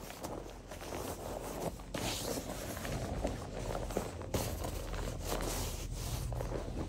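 Rustling and brushing of a jacket's fabric as it is swung on and pulled into place close to the microphone, with small scrapes and knocks from the handling.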